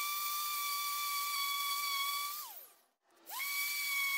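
A power tool's electric motor running with a steady high whine over a hiss. It winds down with a falling pitch and stops, then almost at once starts again, rising quickly to the same steady whine.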